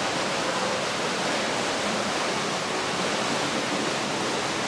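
Steady, even rush of falling water.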